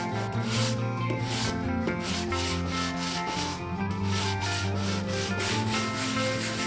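Hand sanding block with sandpaper rubbed back and forth over bare wood, a rasping stroke roughly two to three times a second. Background music plays underneath.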